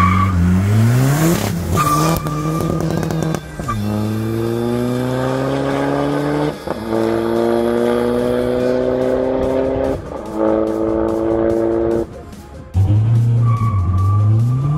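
Seat Ibiza Cupra 1.9 TDI diesel engine accelerating hard through the gears. Its pitch climbs steadily in each gear and drops at each quick upshift, about four times. A thin high whine rises over the engine near the start and again near the end.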